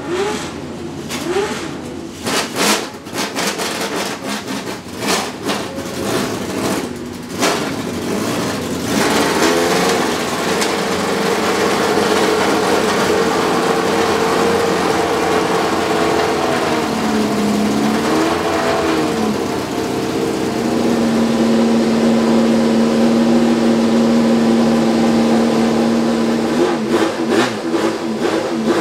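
Ligier JS2's Cosworth DFV 3.0-litre V8 race engine starting and warming up: it catches unevenly with sharp cracks for the first several seconds, then settles into a steady fast idle. The revs dip and recover once about two-thirds of the way in, and rise and fall in short blips near the end.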